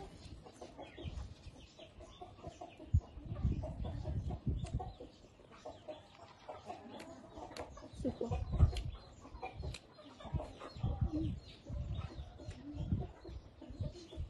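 Close-up eating sounds: chewing and crunching of raw vegetables dipped in chili paste, with mouth clicks and smacks in irregular bursts. Chickens cluck in the background.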